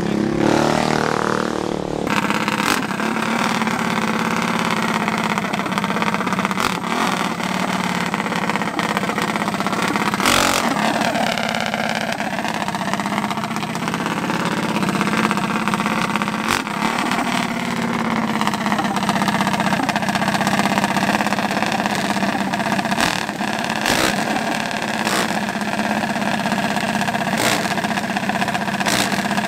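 Racing mini bike engines running at the start line, idling and being revved up and down, most plainly about ten seconds in.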